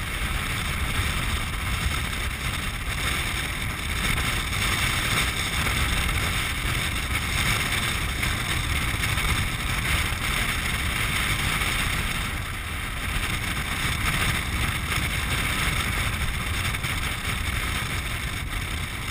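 Land yacht under sail on a dry lake bed: steady wind rushing over the mounted camera's microphone and the rumble of the craft rolling over the hard ground, easing slightly about two-thirds of the way through.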